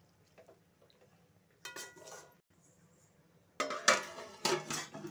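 Metal-on-metal clinks: a single ringing clink a little under two seconds in, then a quick run of ringing clanks near the end as a steel plate is set down on a metal cooking pot as its lid.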